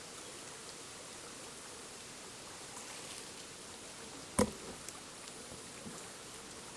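Shallow forest stream flowing and rippling over a sandy bed, a steady soft rush of water. About two-thirds of the way through comes a single sharp knock, followed by a few faint ticks.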